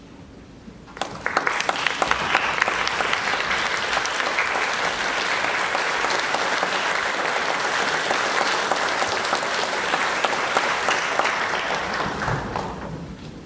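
Audience applauding: the clapping starts suddenly about a second in, holds steady, and dies away near the end.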